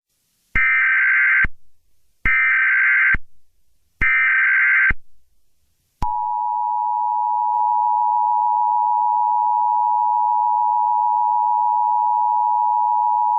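Emergency Alert System broadcast tones: three short bursts of SAME digital header data, each about a second long and a little under a second apart. About six seconds in, the steady two-tone EAS attention signal begins and holds.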